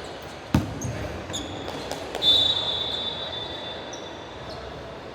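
Basketball game on an indoor court: a ball bouncing with sharp thuds, short high sneaker squeaks, and a loud, steady high-pitched squeal lasting about a second and a half, starting a little after two seconds in.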